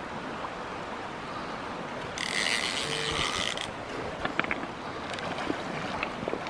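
Fly reel's drag buzzing for about a second and a half as the hooked trout takes line near the net, over the steady rush of the river.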